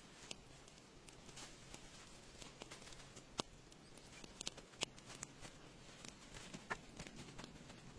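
Faint, irregular small clicks and light rustling over a quiet background hiss, with a couple of sharper clicks in the middle.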